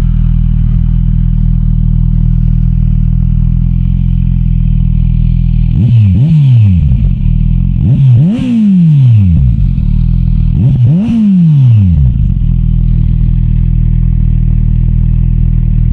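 Kawasaki Z900 SE's inline-four engine idling through an SC Project aftermarket exhaust, blipped three times: about six, eight and eleven seconds in, the revs rise sharply and fall back to a steady idle.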